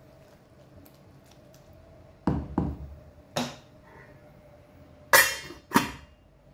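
A wooden spatula knocks three times against a stainless steel pot, then a glass lid clinks twice as it is set onto the pot, over a faint steady hum.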